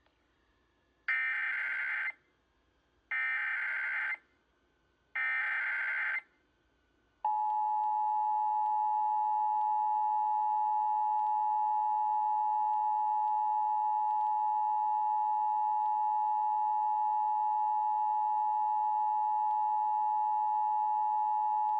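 Emergency Alert System broadcast signalling: three short, shrill digital data bursts of about a second each, a second apart, carrying the SAME header that codes this alert as a Required Monthly Test. About seven seconds in, the steady two-tone EAS attention signal starts and holds unbroken.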